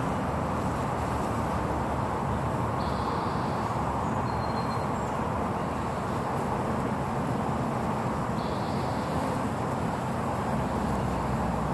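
Honeybees buzzing at a hive entrance, a steady dense hum of many wings as bees fly in and out.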